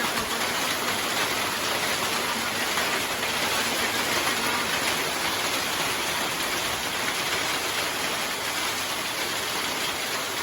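Hailstorm: hail and heavy rain falling hard, a dense, steady hiss of countless impacts.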